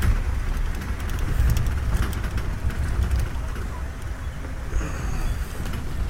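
Open safari jeep driving along an unpaved forest track: steady low engine and tyre rumble with wind on the microphone and scattered light rattles and ticks.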